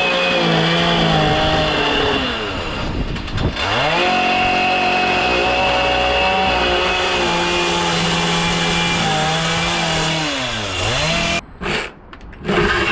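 Chainsaw running at high revs as it carves wood. The pitch drops and climbs back twice as the throttle is eased off and opened again, and the sound cuts out briefly near the end.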